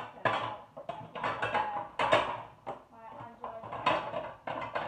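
Kitchen clatter: dishes, pots and cutlery knocking and scraping in a rapid, irregular run of sharp clinks and knocks.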